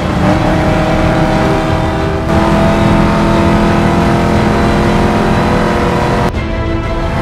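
V8 engine of a Dodge Challenger SRT muscle car running at steady revs while cruising, its pitch holding constant. It gets louder about two seconds in and dips briefly about six seconds in.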